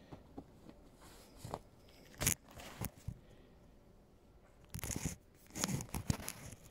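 Handling noise from the phone that is recording, as it is moved and set upright: irregular crunching scrapes and knocks in a few short clusters, one about two seconds in and a longer patch around five to six seconds in.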